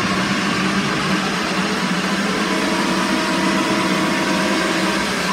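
Steady din inside a hockey arena: a dense, even murmur of the crowd and the building's hum, with faint steady tones underneath.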